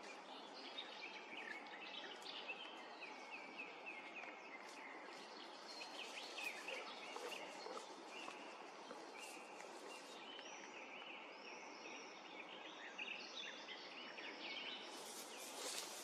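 Birds singing, with a song thrush's short phrases, some repeated several times, over a steady faint hiss.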